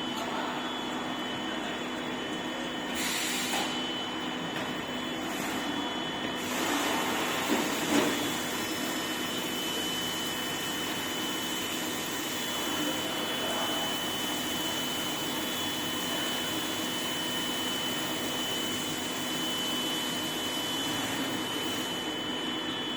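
CNC gantry milling machine running, a steady mechanical hum with a high, thin, steady whine. Louder noise comes briefly about three seconds in and again about seven to eight seconds in.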